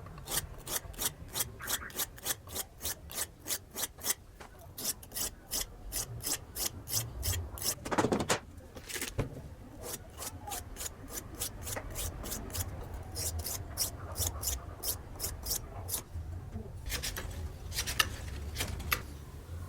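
Rhythmic back-and-forth hand strokes of an abrasive rubbing on the knife, about three strokes a second. About eight seconds in the strokes break off with one louder, lower sound, then resume in shorter runs.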